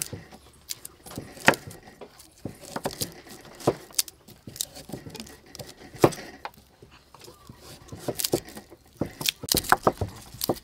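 Cleavers slicing carrots on wooden chopping boards: irregular sharp knocks of the blades striking the wood, coming quicker and closer together near the end.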